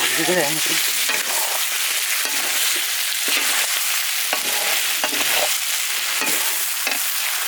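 Fried onions and ground spices sizzling in a hot pan while being stirred: a steady frying hiss.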